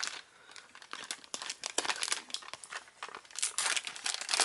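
Plastic blister packaging being handled and opened by hand: irregular crinkling and crackling, busier near the end.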